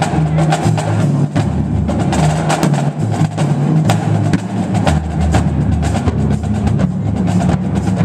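Marching drumline playing a cadence: snare drums, tenor drums and a line of pitched bass drums together. Dense, fast strokes run over low drum notes that keep changing pitch.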